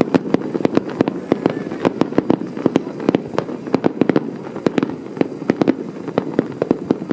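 Aerial fireworks going off in a rapid barrage, several sharp bangs and cracks a second over a steady rumble.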